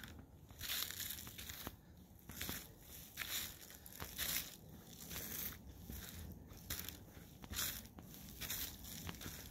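Footsteps crunching through dry fallen leaves on a forest trail, about one step a second.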